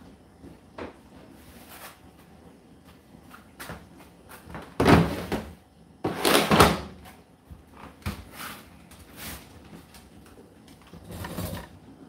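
The plastic condensed-water container drawer of an Indesit condenser tumble dryer being slid out of the top panel with two loud scraping slides about five and six seconds in, then pushed back in with a shorter slide near the end.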